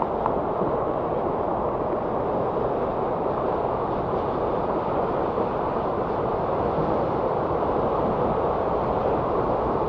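Steady drone of road traffic: an even rush of many cars, with no single pass-by standing out.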